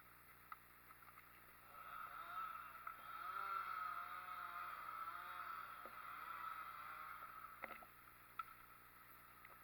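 Faint engine running, its pitch wavering up and down for several seconds, followed by two sharp knocks near the end.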